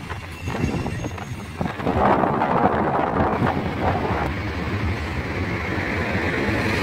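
Outdoor road traffic noise with wind buffeting the microphone, growing louder about two seconds in.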